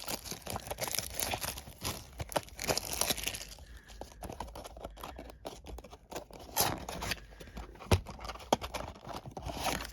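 Packaging of a Pokémon card booster bundle being torn open and handled: irregular crinkling and tearing of plastic wrap and cardboard, with scattered clicks and one sharp tap about eight seconds in.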